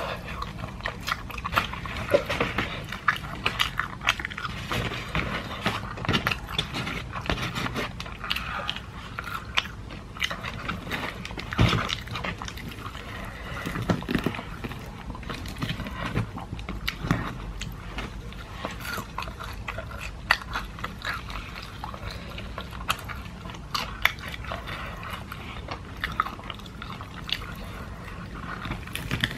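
Close-up eating sounds: biting and chewing KFC Golden Egg Crunch fried chicken, its salted-egg crumb coating crackling between wet chewing, and fingers tearing the chicken apart. The coating is about an hour old and does not crunch loudly.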